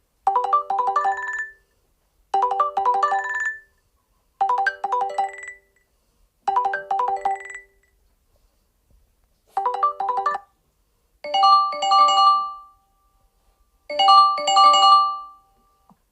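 Google Pixel 9 phone ringtone playing through the phone's speaker: a short, bright melodic chime phrase repeats four times with brief pauses. After a longer pause, about ten seconds in, a different, fuller melodic phrase repeats.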